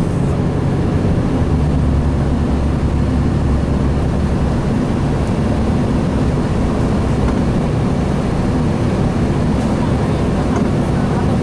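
Inside the cabin of a 2007 Gillig Phantom transit bus cruising at highway speed. Its Cummins ISL diesel engine runs at a steady, low drone over steady road noise.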